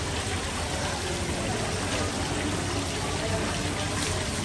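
Holy water pouring steadily, a continuous splashing run of water.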